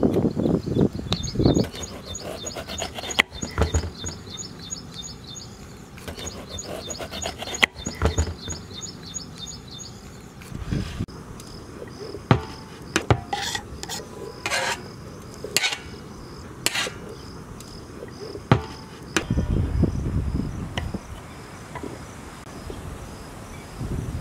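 Kitchen knife cutting and scraping bell pepper on a wooden chopping board: scattered sharp knocks of the blade and rasping strokes as diced pieces are pushed across the board. Insects chirp in a fast, steady repeating pattern throughout.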